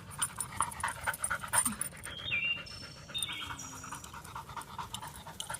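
An animal panting in quick, even breaths, with a few short high-pitched tones about two to four seconds in.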